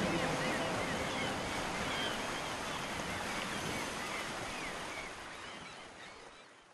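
Steady rushing of gusty wind and rough, churning harbour water stirred up by a tugboat, with a few faint high chirps. It fades away over the last couple of seconds.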